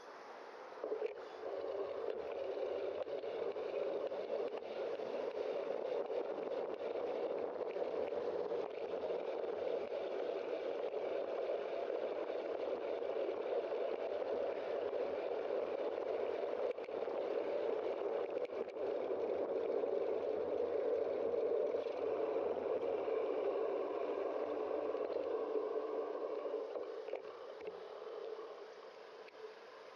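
Steady rushing noise of a bicycle in motion, wind and tyres on the bike camera's microphone. It comes up about a second in as the bike moves off and dies down near the end as it slows.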